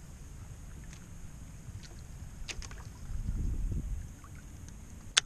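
Water washing against the hull of a small boat as a low, uneven rumble that swells louder about three seconds in. There are a few light clicks, and one sharp click just before the end.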